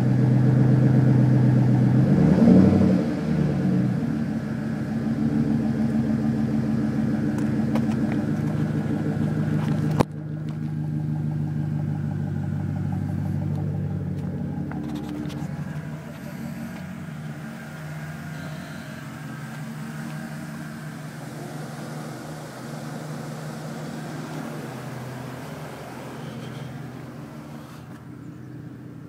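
Chevy 5.3 L V8 running through a Flowmaster Super 10 muffler with a deep, steady exhaust note, and a short rev about two seconds in. About ten seconds in the sound changes abruptly with a click, then the engine runs on steadily and slowly gets quieter.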